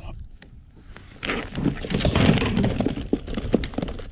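A dense run of knocks, clatter and rustling starting about a second in: handling noise from an angler dealing with a freshly caught bluegill and tackle in a small kayak.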